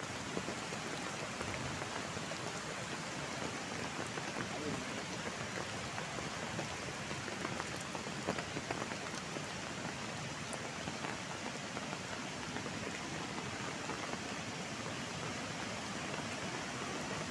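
Steady rush of heavy rain and fast-flowing muddy floodwater, with scattered faint drop ticks.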